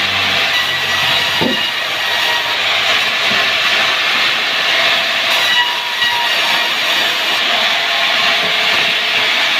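Sawmill wood saw running and cutting timber: a loud, steady hissing din that holds level throughout.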